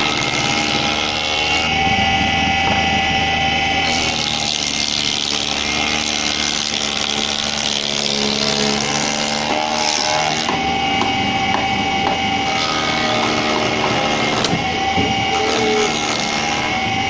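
Wood spindle moulder running steadily with a constant whine, its cutter head shaping the edge of a wooden plank fed past it by hand; the cutting noise comes and goes as the plank is worked along the cutter.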